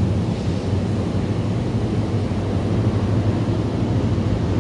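MARC bilevel commuter train running alongside at close range: a steady low rumble with a strong hum, and wind on the microphone.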